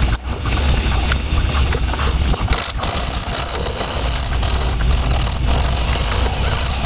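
A machine running steadily with a strong low hum, with a few brief dips in the noise.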